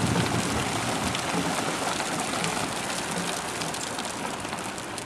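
Heavy thunderstorm rain pouring down: a steady hiss with fine scattered ticks of drops, slowly easing off.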